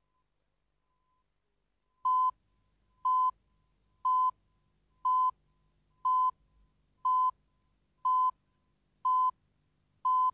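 Videotape countdown leader: a short steady-pitched beep once a second, nine in all, starting about two seconds in, each marking a number of the countdown. Faint low hum between the beeps.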